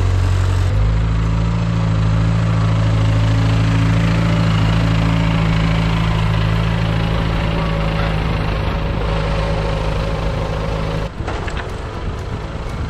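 1963 Ford 2000 tractor engine running steadily while plowing snow. Its pitch shifts once about a second in, and near the end it drops suddenly to a quieter level as the tractor moves off.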